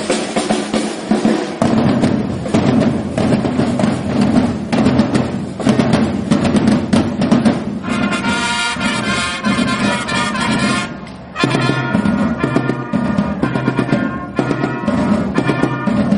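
Music of drums and brass: a steady drumbeat with rolls, and brass instruments joining about eight seconds in, with a brief drop near eleven seconds.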